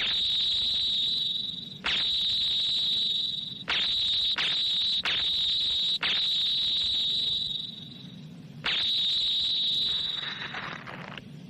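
Sci-fi ray-gun sound effect: a high, steady whistling tone fired in a string of sharp-edged blasts, about seven of them lasting half a second to two seconds each, as laser guns burn the space creature. A short hiss follows near the end.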